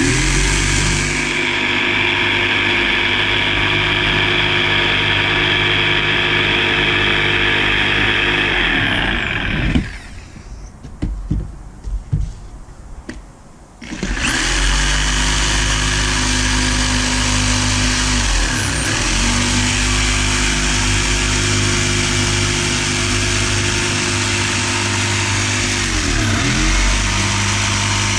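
Jigsaw cutting a curve through a wooden board, its motor and blade running steadily. It stops about ten seconds in, with a few knocks while the board is shifted, then starts again about four seconds later and cuts on.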